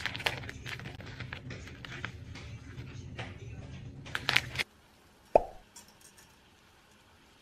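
Paper wrapping around a bundle of dry matcha soba noodles crinkling and rustling as it is torn open by hand, with a louder burst of crinkling near the end of the tearing, over a steady low hum. Then the sound cuts to near quiet, broken about halfway through by a single short plop with a brief ringing tone.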